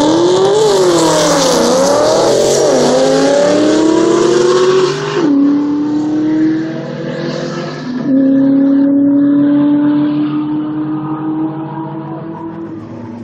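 Two Ford Mustangs, a Cobra and a Fox-body, launching down a drag strip at full throttle. The engine pitch climbs and drops several times through the gear changes in the first few seconds, then holds a steadier climbing note as the cars run away down the track and fade.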